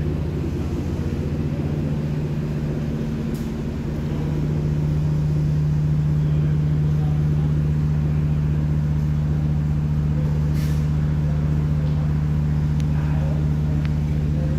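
Renfe Media Distancia multiple unit giving off a steady low hum, which grows a little louder about four seconds in.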